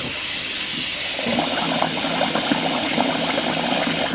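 Kitchen faucet running a steady stream of water into a rice cooker's inner pot of uncooked rice, filling it to rinse the rice before cooking.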